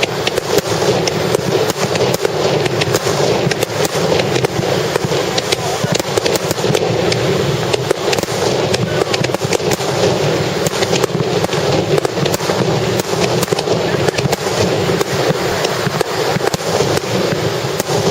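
Starmine fireworks barrage: a dense, unbroken run of shell bursts and crackle, many reports a second, heard from a few hundred metres away.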